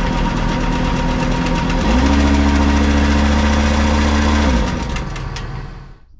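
Tractor engine driving a slurry tanker's rotary-vane vacuum pump, run as a test after the stuck pump was freed and reassembled. It runs steadily, is revved up about two seconds in and held, then drops back to a lower speed, and the sound fades out just before the end.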